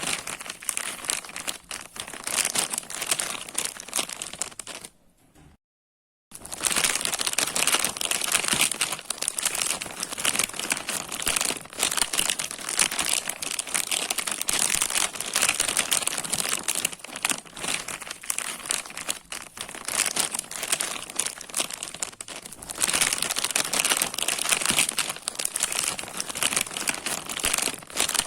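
Plastic bag being crumpled and crinkled by hand in a continuous dense crackle. It breaks off into a second of dead silence about six seconds in, then carries on.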